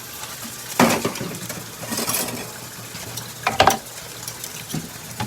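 Kitchenware being handled, a pot and bowl knocking and clattering. There is a sharp knock about a second in, a brief hiss around two seconds, and another couple of clatters at about three and a half seconds.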